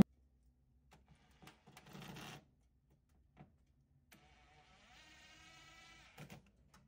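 Cordless drill-driver running faintly in two short spurts, the second a steady motor whine of about a second, driving screws to mount a circuit board, with a few light clicks in between.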